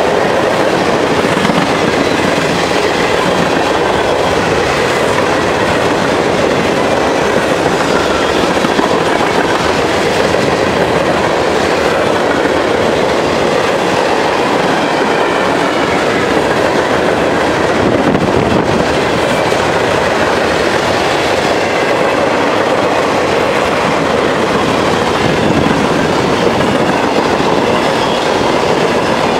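Freight cars of a mixed freight train (tank cars, boxcars and covered hoppers) rolling past close by: a steady, loud rumble and clatter of steel wheels on the rails.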